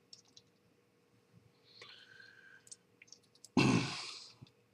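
A few light scattered clicks, then a sigh about three and a half seconds in that fades over nearly a second.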